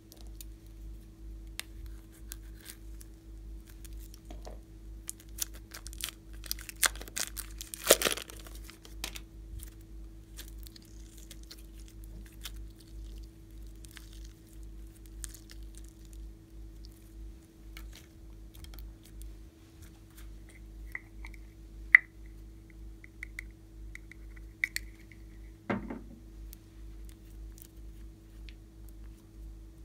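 Glossy slime being stretched and squished by hand: scattered sticky crackles and small pops, busiest around the eighth second, with a few short high squeaks and a sharp click about two-thirds through, over a steady low hum.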